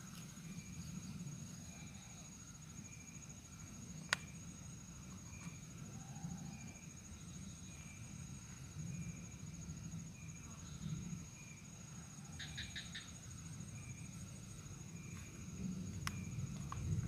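Steady high-pitched insect drone with a fainter repeated chirp. A few small sharp clicks and soft handling rustles from hands working worm bait into a cup on sacking.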